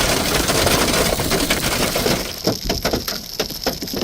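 Large hail pelting down: a dense clatter of hits that thins after about two seconds into separate sharp cracks.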